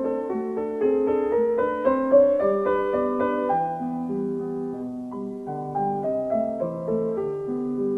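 Solo piano music, a melody of single notes over a lower accompaniment, climbing in pitch over the first couple of seconds and then settling lower.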